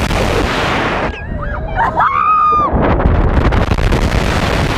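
Heavy wind buffeting the microphone as the ride swings. Between about one and three seconds in the rush eases and riders' screams rise and fall over it.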